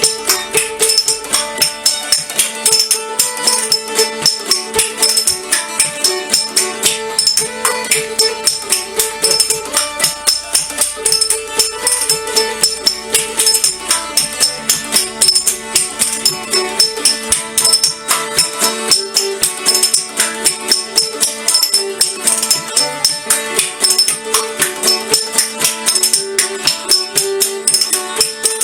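Background music with a fast, steady percussive beat under a wavering melody line.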